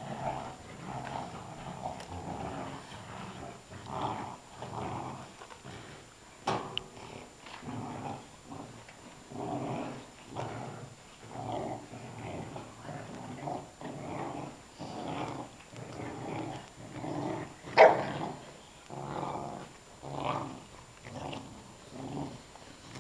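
Puppies growling in play while tugging a toy between them, a run of short growls one after another. One loud, sharp puppy call stands out about three quarters of the way through.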